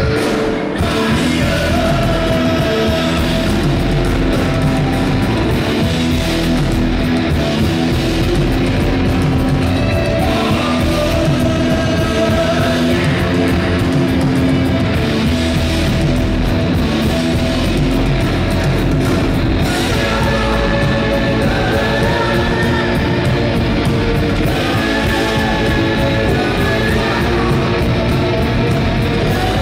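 Live rock band playing: several electric guitars over bass guitar and drums.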